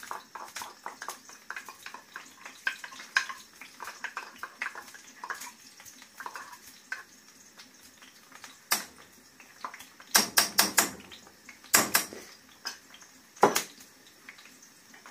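Ginger and garlic crackling lightly as they fry in hot oil in a wok, with sharp metal clinks of utensils against pots: one at about nine seconds, a quick run of clinks a second later, then two more.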